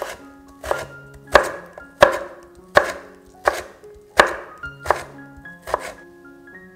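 Kitchen knife cutting cucumber into thin strips on a wooden cutting board: about eight even chops, one every 0.7 seconds or so, over light background music.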